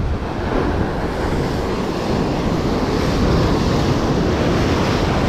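Sea surf washing in, with wind buffeting the microphone; the rush of water swells about half a second in and stays loud.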